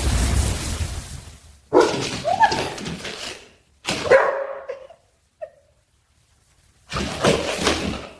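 A dog barking and whining in three short bursts split by brief silences, the first two carrying short pitched whines. A hiss of noise fades out in the first second.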